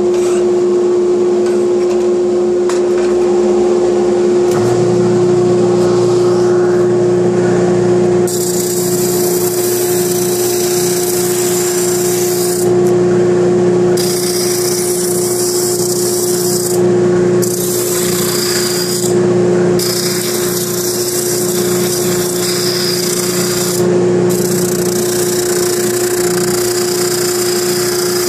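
Dust collector running with a steady hum; a spindle sander's motor starts about four to five seconds in, and from about eight seconds the edges of 2x4 wood pieces are pressed against the spinning sanding drum, a grinding hiss in passes of a few seconds with short pauses between.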